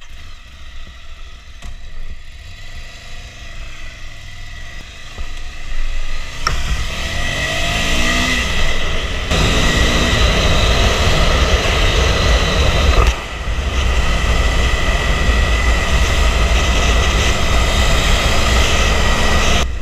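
Ducati Monster's twin-cylinder engine pulling away and accelerating, its pitch rising in steps as it goes up through the gears. From about halfway it is joined by a loud steady rush of riding wind, with a brief drop in loudness about thirteen seconds in.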